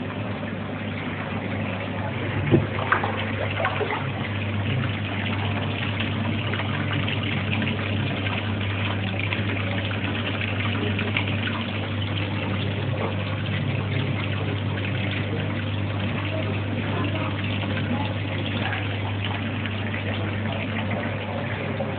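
Aquarium pump and filter running: a steady low hum under continuous bubbling and trickling water, with a couple of sharp knocks about two and a half seconds in.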